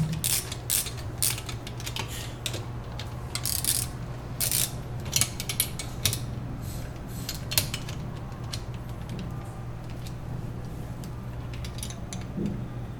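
Metal clicks and clinks of a 9/16 wrench tightening bolts snug, coming thick and irregular through the first half and thinning out later, over a steady low hum.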